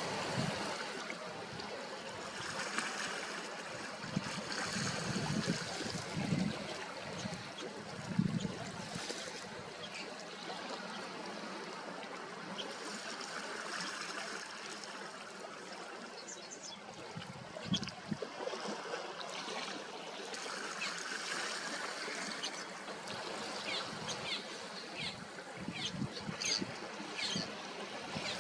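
Sea water lapping and trickling, with scattered small splashes and clicks, several in quick succession near the end.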